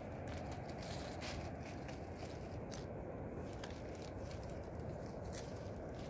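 Young leaves and buds being snapped off mountain fig branches by hand: scattered small snaps, crackles and rustles, several a second, over a steady low background rumble.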